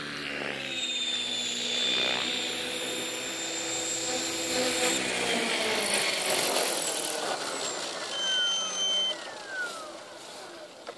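Align T-Rex 550E electric RC helicopter, driven by an Align 600MX brushless motor, coming down to a low hover and landing. Its rotor and motor sound is steady at first, then slides down in pitch in the last few seconds as the rotor spools down on the ground.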